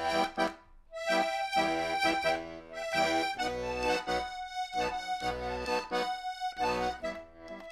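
Instrumental music led by an accordion, playing repeated chords over a pulsing bass.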